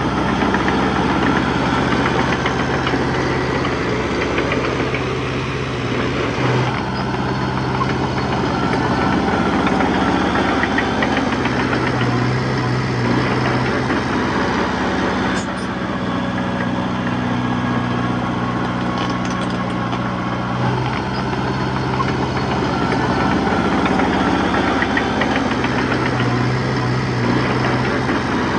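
Bulldozer diesel engine running steadily, its revs and loudness swelling and easing every few seconds as it works, with a few light clanks.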